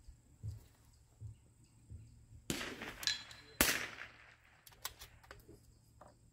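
.22 LR precision rifle firing one shot, a sharp crack about three and a half seconds in. About a second before it comes a shorter rush of noise, with a few faint knocks earlier.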